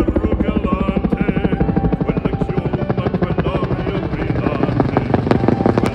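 Helicopter rotor running, a fast steady chop of blade beats. It starts abruptly.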